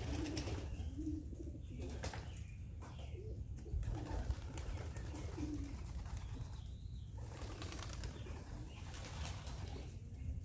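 Young pigeons cooing, a run of short low coos about once a second, with wings flapping as the birds stir in the loft.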